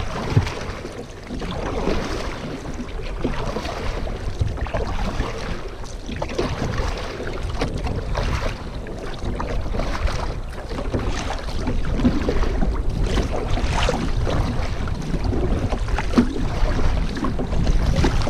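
Wind buffeting the microphone over water sounds around a sit-on-top sea kayak, with irregular splashes and knocks.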